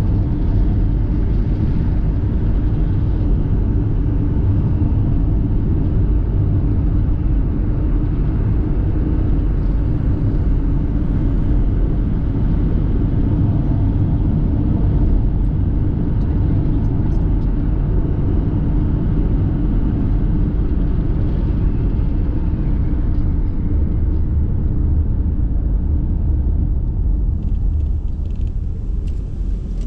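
Car driving along: a steady low rumble of engine and road noise, easing slightly near the end.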